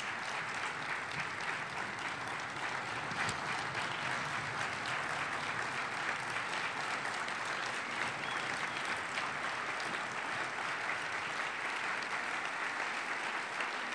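Large audience applauding steadily, a dense even clapping that holds without letting up.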